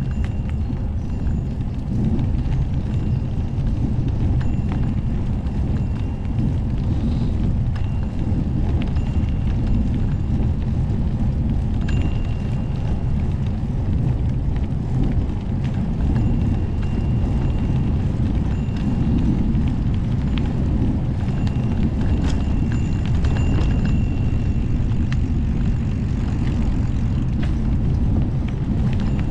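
Steady low wind rumble buffeting the microphone of a camera carried on a moving bike, with scattered light clicks and rattles.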